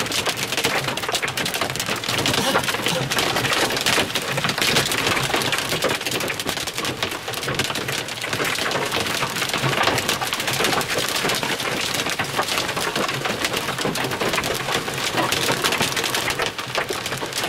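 Hail and rain pelting a car's roof and windshield, heard from inside the vehicle as a dense, unbroken clatter of impacts.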